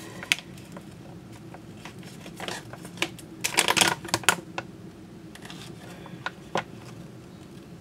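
Coffee gear and packaging being handled on a tabletop: scattered sharp clicks and a quick run of clattering clicks about three and a half seconds in.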